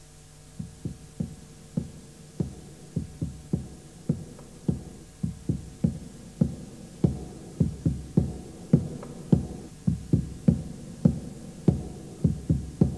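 Deep drum beats in a repeating rhythm of about two to three a second, starting soft and growing louder.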